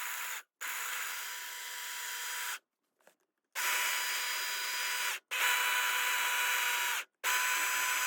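Small electric grinder grinding almonds, run in pulses of one to two seconds with short stops between, a steady whine riding on the grinding noise; the almonds come out coarsely ground.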